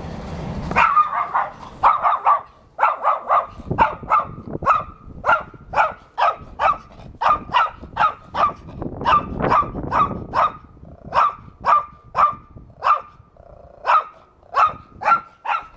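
Chihuahua barking nonstop: short, high-pitched yaps coming about three a second, starting about a second in.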